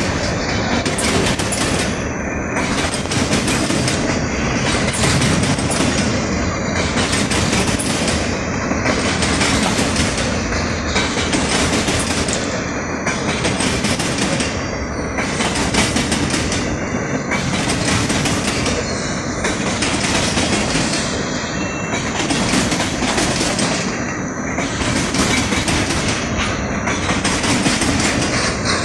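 Freight cars of a passing freight train, covered hoppers and boxcars, rolling by on steel wheels: a loud, steady rumble of wheels on rail, rising and falling in a regular rhythm about every two seconds.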